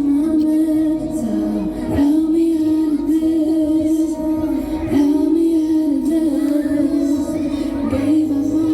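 Live amplified music: a female vocalist singing long, wavering held notes over the accompaniment, with short breaks between phrases about two and five seconds in.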